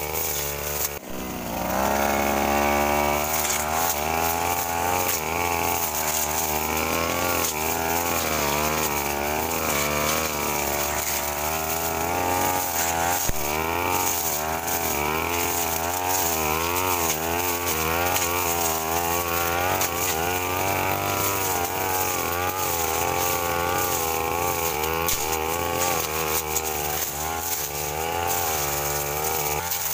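Backpack brush cutter's small petrol engine driving its blade through undergrowth. The engine dips briefly about a second in, then revs back up and runs at high speed, its pitch wavering up and down as the blade meets and clears the growth.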